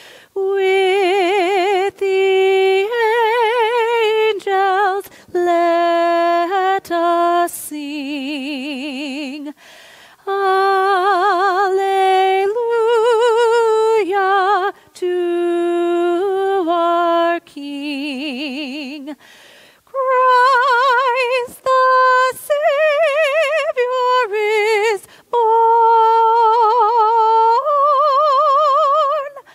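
A solo female voice singing a slow melody unaccompanied, holding long notes with a wide, even vibrato and pausing briefly for breath between phrases.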